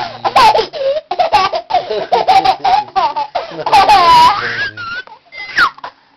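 Young child laughing hard in long runs of high, breathless belly laughs, loud enough to clip. The laughter dies down about four and a half seconds in, and a short high squeal comes near the end.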